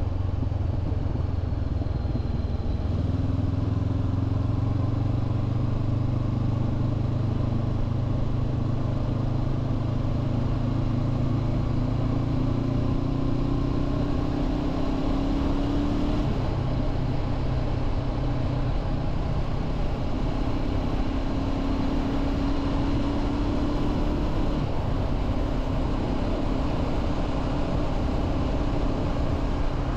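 2023 Honda CB500F's parallel-twin engine pulling at road speed over steady wind and road noise. The engine note steps up a few seconds in and climbs slowly, then drops abruptly about halfway through at an upshift, and afterwards holds fairly steady.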